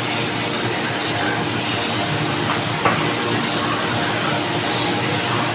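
Electric desk fan running with a steady whoosh, and a single sharp click a little under three seconds in.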